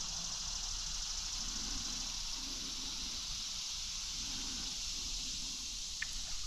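Steady, fairly faint high-pitched hiss of an insect chorus, with a small click near the end.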